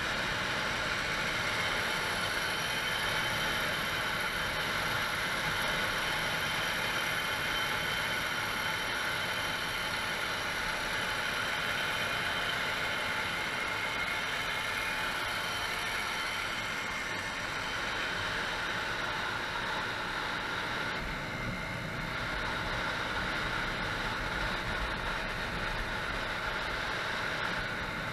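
Scooter engine running at a steady cruising speed, heard on board, with wind and road noise over it.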